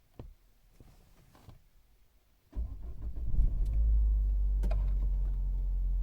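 A few light clicks, then about two and a half seconds in a 1.6 THP turbocharged four-cylinder petrol engine starts abruptly and settles into a steady idle.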